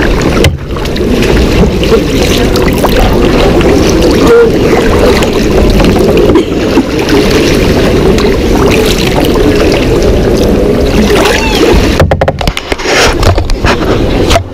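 Kayak moving on a canal: a steady, muffled rush of water and paddling, with a change in the sound about twelve seconds in.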